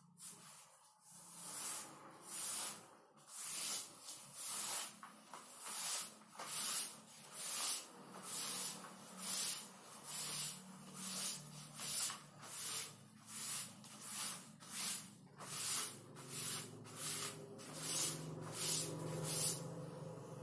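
Cloth duster wiping chalk off a blackboard in rhythmic scrubbing strokes, a little over one a second, each a short hiss.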